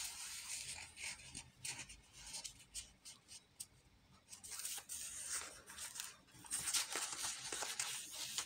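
Paper and card rustling and scraping as a tag is slid into a paper pocket in a handmade journal and a page is turned, the rustle getting busier and louder in the second half.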